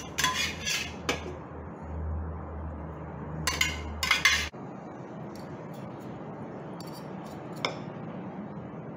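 Metal clinks and clatter from a stainless steel lunch box tray and its spoon being handled, loudest in a cluster about three and a half to four and a half seconds in. After that come a few light clicks of forks against a ceramic bowl.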